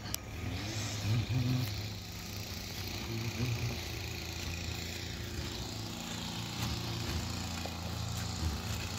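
Lawn mower engine running steadily while cutting grass, a constant low hum with small swells in level now and then.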